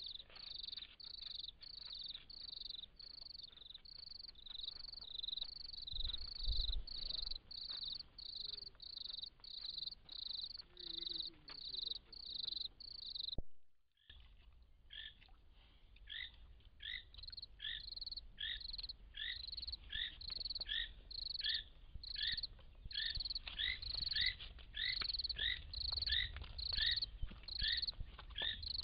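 Night chorus of small calling animals: a regular train of short, high chirps, about two a second. About halfway through it breaks off and a second caller takes over, each chirp followed by a lower note, a little slower.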